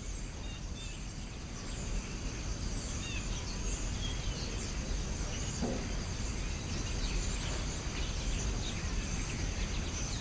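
Outdoor background ambience from a film soundtrack: a steady hiss with faint, scattered bird chirps.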